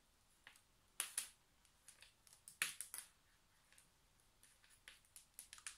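Faint, irregular clicks and light rustling of a USB cable and its plastic connector being handled, with a quicker run of small clicks near the end.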